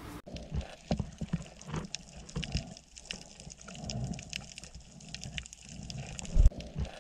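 Muffled underwater recording: irregular knocks, bumps and water movement against the camera, with one heavy low thump near the end.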